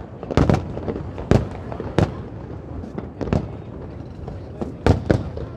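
Aerial fireworks shells bursting in a string of sharp bangs, about eight of them, some coming in quick pairs, spaced roughly a second apart.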